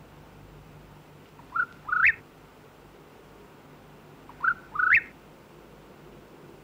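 Two whistled bird-like calls about three seconds apart, each a short rising note followed by a longer note that sweeps higher.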